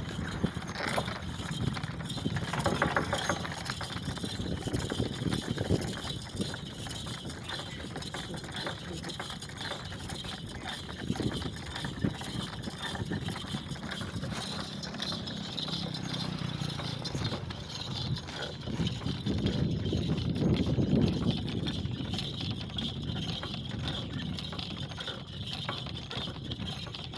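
Camel-drawn cart rolling along a paved road: a steady rumble with continual rattling and clinking from the cart and the camel's harness.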